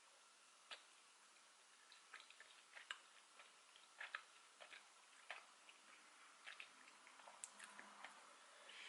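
Faint, scattered clicks and taps of eating with a small fork: the fork touching the food container, and soft mouth noises.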